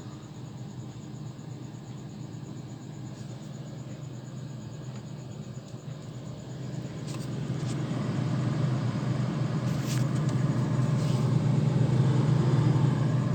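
Samsung refrigerator running with a steady low hum, growing louder about seven seconds in. This is a fridge the owner complains is noisy while it cools hard.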